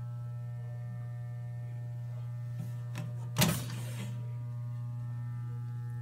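Steady electrical hum from a powered-on Schleuniger JS 8400 automatic wire stripping machine. About three and a half seconds in, a short loud burst of noise comes, after a couple of faint clicks.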